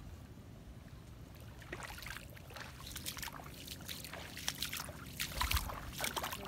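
Footsteps sloshing and splashing through shallow water, an irregular run of wet splashes that starts about two seconds in and grows louder, with a low thump near the end.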